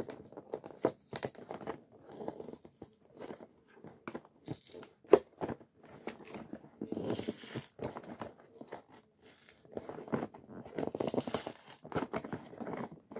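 Toy packaging of card and plastic being handled and pried at to free the toy: irregular crinkling, rustling and scraping, with one sharp click or snap about five seconds in.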